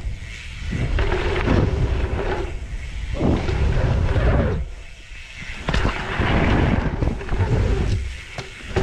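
Wind rushing over an action camera's microphone as a mountain bike is ridden along a dirt trail. The rush swells and drops every second or two, heaviest at the low end.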